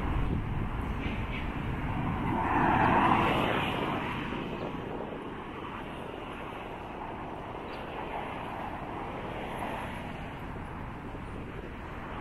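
Steady road traffic noise, with one vehicle passing, loudest about three seconds in, then fading to a steady hum.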